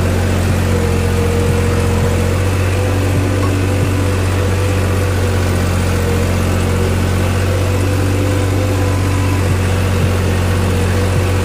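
New Holland 3630 tractor's three-cylinder diesel engine running steadily while pulling a harrow, heard from the driver's seat.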